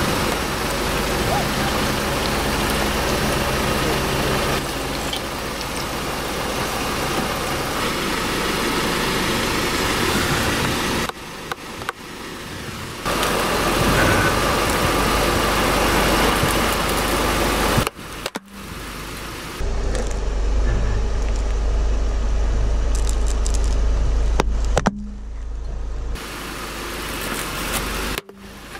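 Car engine idling as a tyre rolls slowly over squishy toys and a hollow plastic skull, crushing them. Several short takes, with sudden jumps in level between them.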